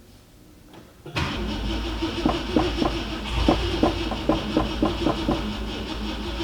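A 1966 Ford Thunderbird's V8 being cranked on a shot of starting fluid in the carburettor. It starts suddenly about a second in, with uneven pops a few times a second over a steady rumble, the gasoline in the carburettor being suspected evaporated.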